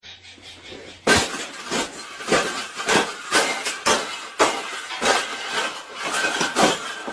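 Repeated sharp clattering knocks with a clinking ring, about a dozen at an irregular pace of one to three a second.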